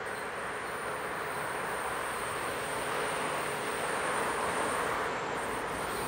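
DR class 112 (V 100) diesel-hydraulic locomotive approaching from a distance: a steady hiss of engine and wheels on rail with a faint hum, growing gradually louder as it nears.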